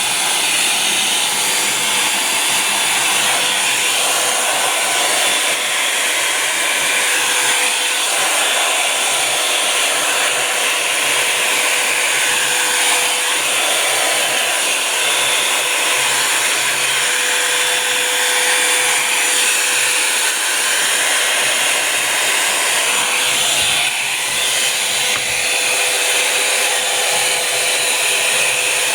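Revlon One-Step Volumizer Plus hot-air brush dryer running steadily on its medium setting, blowing a loud, even rush of air with a faint whine from its motor. The air noise shifts slightly as the brush is worked through the hair.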